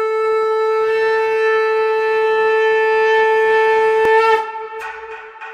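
Conch shell (shankh) blown in one long, steady note, held for about four seconds, then dropping away and dying out with an echo.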